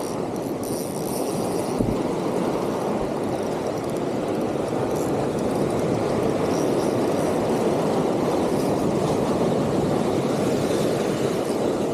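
Steady rushing of surf washing on the shore, mixed with wind on the microphone. A single soft knock comes about two seconds in.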